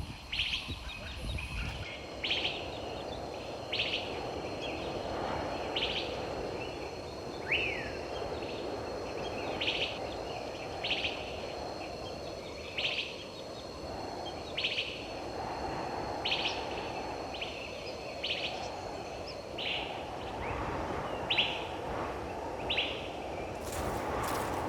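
A bird calling repeatedly, one short high note about every one and a half to two seconds, over a steady background noise. A few sharp clicks come near the end.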